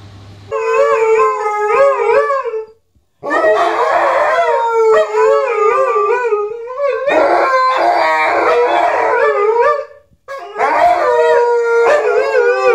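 Two Alaskan malamutes howling together, their wavering pitches overlapping, in three long bouts broken by two short pauses.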